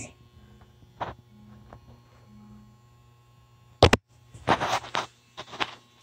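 Steady low hum of boiler-room equipment. About four seconds in comes a single sharp knock, the loudest sound, followed by a second or so of rustling, scraping noise.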